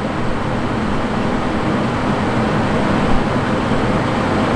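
Pelonis in-wall air conditioner running on its low fan-only setting: a steady rush of moving air with a low hum underneath.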